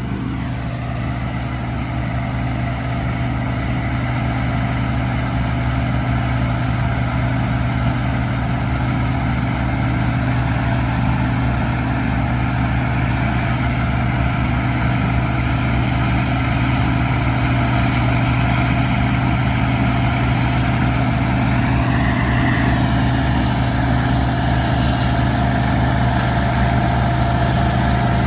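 Farm harvesting machine's engine running steadily under load, a constant drone that builds slightly in loudness over the first several seconds.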